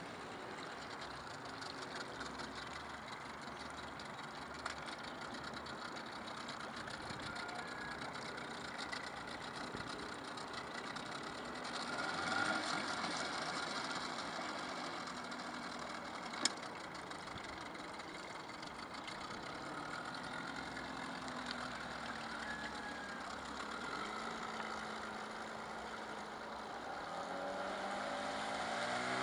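HDX T9.8 two-stroke outboard motor running at low throttle at a distance, then rising in pitch near the end as it is opened up and the inflatable boat gets on plane. A single sharp click sounds a little past the middle.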